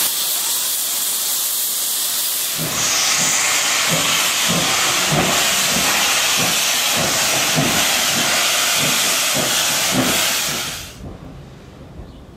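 Class 15F steam locomotive hissing loudly as it lets off steam. About three seconds in the hiss grows brighter and a steady chuffing joins it, about two beats a second. The sound drops away abruptly near the end.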